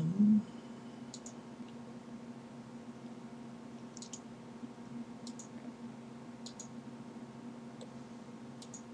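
Computer mouse button clicks: about six sharp clicks, each a quick double tick, spaced a second or so apart, over a steady low hum.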